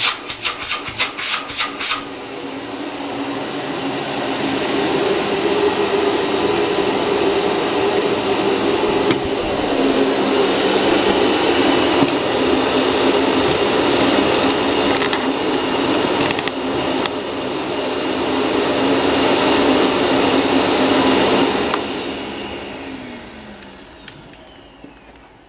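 Electrolux UltraFlex bagless canister vacuum cleaner's motor starts about two seconds in, builds up over a few seconds and runs steadily while cleaning up dust and rice. Near the end it is switched off and winds down with a falling hum. Rapid scraping clicks come in the first two seconds.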